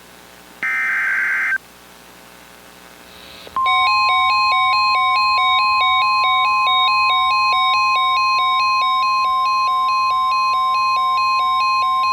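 An Emergency Alert System header, a short burst of warbling digital data tones, ends about a second and a half in. After a pause, a loud steady high attention tone starts about three and a half seconds in and holds, with a second pulsing tone alternating under it about twice a second. The pair signals the start of a new warning broadcast.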